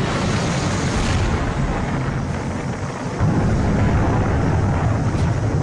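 Titan I missile explosion: a continuous low, noisy rumble from the burning fireball, which gets louder again about three seconds in.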